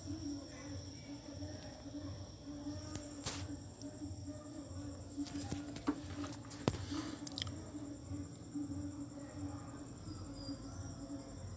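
Insects chirping: a very high chirp repeated about twice a second over a low steady hum, with a couple of faint clicks.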